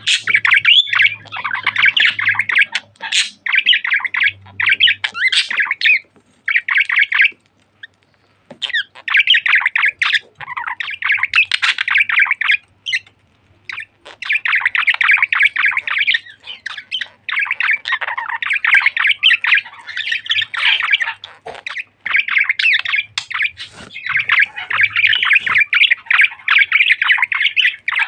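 Pet budgerigar chattering and warbling: long runs of fast, scratchy squawks and chirps with a few brief pauses.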